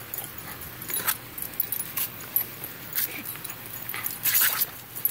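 Garden-hose nozzle spray splashing as two small terriers snap and bite at the water jet, in short splashy bursts about once a second, with a longer one near the end.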